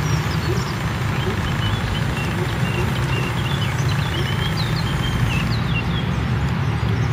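Small birds chirping repeatedly over a steady low outdoor rumble.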